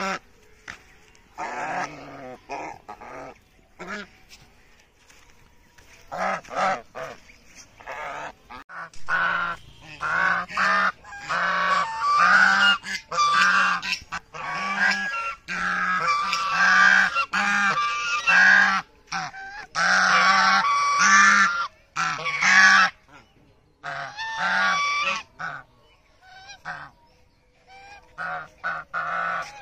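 Domestic geese honking again and again in quick runs of loud calls, thickest through the middle, with sparser calls at first and a short lull near the end.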